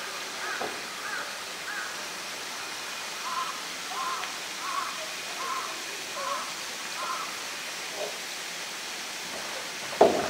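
A bird calling in two runs of short, evenly spaced calls, a little under a second apart. About ten seconds in comes a loud hollow knock, the polar bear's paws coming down on a blue plastic polytank.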